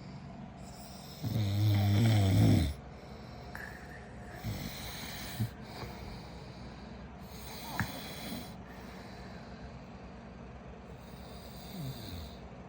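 A person snoring: one loud, low snore lasting about a second and a half near the start, then quieter snoring breaths every three to four seconds.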